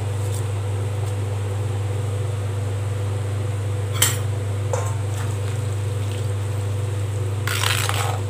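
A steady low hum throughout, with a sharp clink of a utensil about four seconds in. Near the end, a ladle scrapes and swishes as it stirs drumstick leaves into the water in a clay pot.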